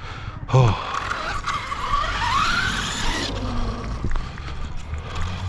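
Arrma Kraton 6S EXB RC truck on the move: its electric motor whine rises in pitch while the tyres scrape and skid over the ground, for about three seconds before it drops away.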